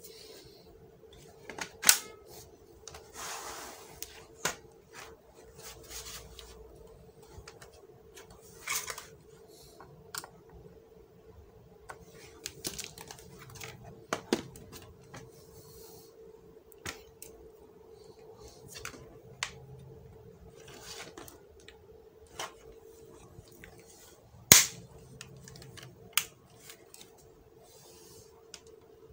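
Scattered clicks, taps and knocks of plastic laptop parts being handled as the battery is fitted back into an HP 240 G6 laptop. A sharp click comes about two seconds in and the loudest about twenty-five seconds in, over a faint steady hum.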